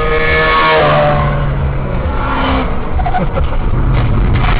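A motorcycle engine whines at high revs as it overtakes, its pitch dropping about a second in as it passes, over the steady road rumble of the camera car. A few light knocks near the end come as the motorcycle goes down on the road ahead.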